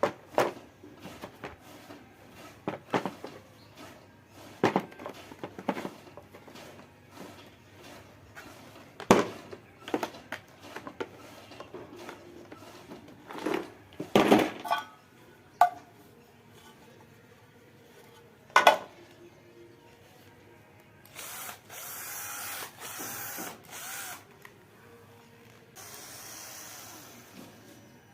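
Sharp knocks and clicks from handling the work and the screws. About 21 seconds in, an electric drill runs in three short bursts, driving a screw into wood. A fainter, shorter run follows near the end.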